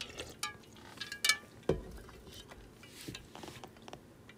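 Ice cubes clinking against the sides of a thin aluminium pot as a drink is taken from it, with a few small knocks of the pot. The clinks come as scattered, faint, sharp ticks.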